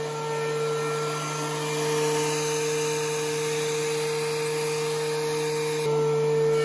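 DeWalt DW735X thickness planer running with a steady motor and cutterhead whine as a board feeds through, the hiss of the cut thicker through the middle. The sound changes abruptly near the end.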